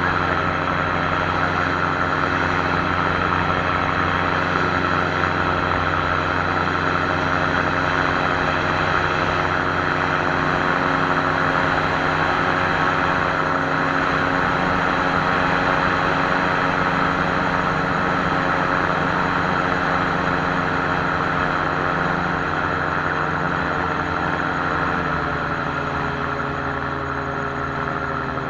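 Air Command gyroplane's engine and pusher propeller heard from on board, running at a steady drone on the landing approach. About 25 seconds in, the pitch and level drop as the power comes back for the landing.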